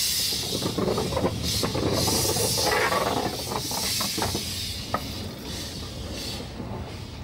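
Steam hissing from a small 600 mm narrow-gauge steam locomotive standing in steam, with scattered metallic knocks. The hiss swells and eases, then dies away near the end.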